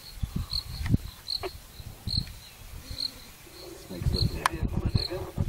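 A high-pitched insect chirp repeating steadily, about two to three times a second, over irregular low thumps and rumbles.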